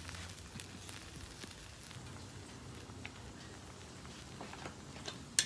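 Faint, steady crackling sizzle of butter and cream sauce heating in a cast-iron skillet on a hot flat-top griddle, with a couple of sharp clinks near the end.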